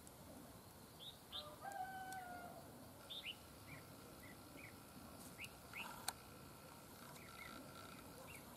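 Red-whiskered bulbuls giving faint, short chirping calls again and again, with a longer, lower held call about two seconds in and a single sharp click about six seconds in.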